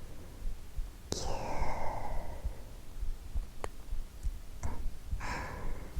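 A woman's long, soft sigh about a second in, over a low heartbeat recorded from her own chest, with a small mouth click and short breaths later on.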